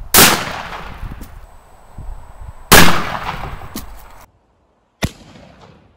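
20-gauge double-barrel shotgun firing: two loud blasts about two and a half seconds apart, each with a fading echo. A short sharp crack follows near the end.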